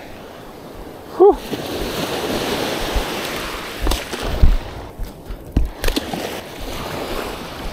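Water rushing and splashing in the beach shallows, swelling from about a second in and easing off over a few seconds. A brief vocal sound comes just before it and is the loudest moment, and a few low thumps follow later.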